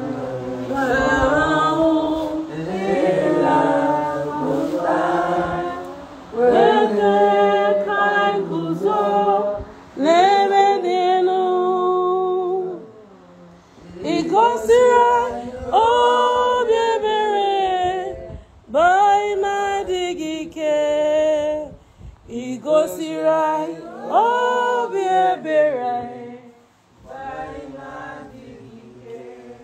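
A small group of people singing together without accompaniment, in sung phrases with short breaks between them.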